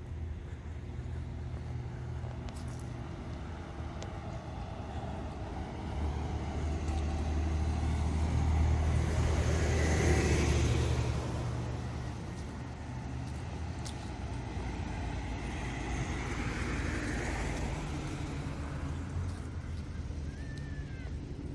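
Road traffic: a steady low hum, with a car passing that swells and fades around the middle and a fainter one passing a few seconds later.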